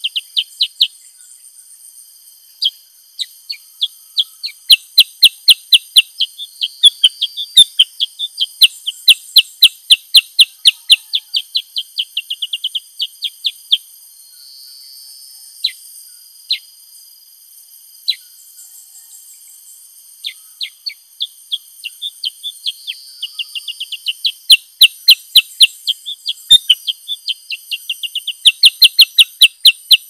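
Black-headed bulbul calling in long runs of short, sharp chirps, several a second. Midway there is a pause of a few seconds broken by a few single notes. A steady high-pitched insect-like whine runs underneath.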